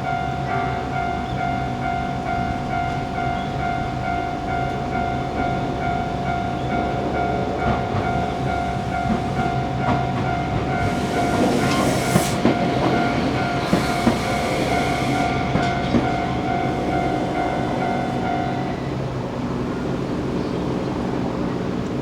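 Tokyu Setagaya Line level-crossing alarm ringing its standard electronic bell tone, steady and repeating, while a Setagaya Line train passes over the crossing with wheels clicking over the rail joints. The bell stops about 19 seconds in as the crossing reopens.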